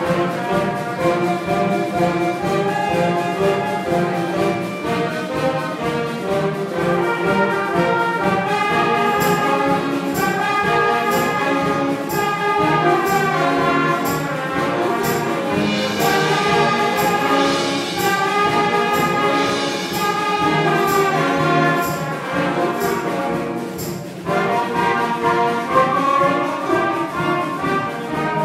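Student concert band playing a piece, brass carrying the melody over sustained chords, with regular percussion hits through the middle; the music drops back briefly near the end and then picks up again.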